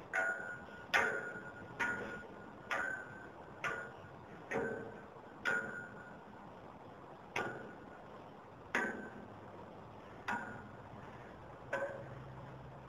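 Metal being struck again and again, about once a second, each blow a sharp clank with a short ringing tone, with a short pause about halfway through.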